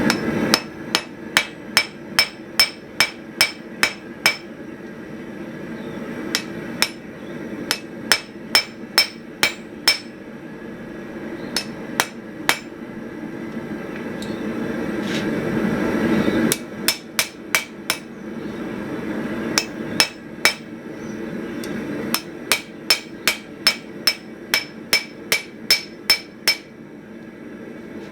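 Hand-forging hammer striking hot flat steel bar stock on an anvil in several quick rounds of about three blows a second, each blow ringing. This is the hammering that sets in and tapers a hinge strap. Between the rounds there is a steady rushing roar.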